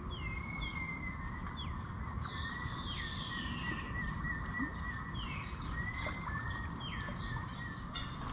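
Birds calling: short downward-sliding whistles about once a second, a thin steady trill, and one longer falling call about two and a half seconds in, over steady low background noise.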